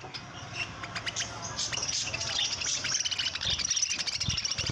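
Budgerigars chattering: many rapid, overlapping short chirps and squeaks throughout.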